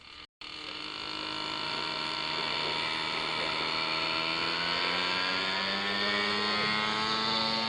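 Radio-controlled model helicopter running steadily, its engine and rotor making a pitched drone whose pitch drifts slightly up and down. It starts just after a brief cut to silence at the very beginning.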